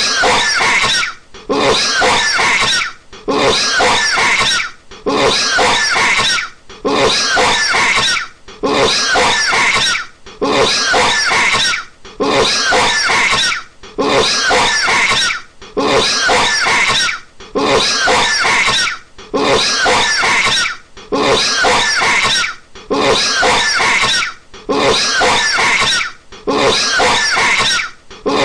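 A man coughing hard, harsh rasping coughs in fits of about a second, repeating at an even pace a little under every two seconds, like a looped clip.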